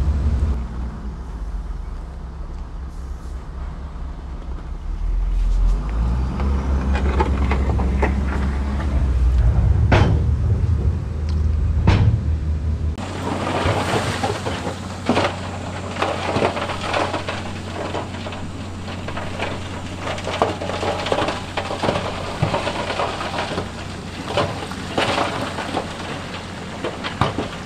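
Heavy diesel earthmoving machinery running with a deep low rumble and a few sharp knocks. About halfway through the sound changes abruptly to a steadier low hum under dense crackling and clattering.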